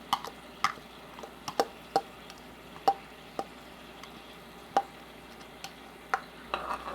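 A spoon clinking and scraping against a pan while stirring a thickening sauce: irregular sharp ticks, about a dozen, over a faint steady background.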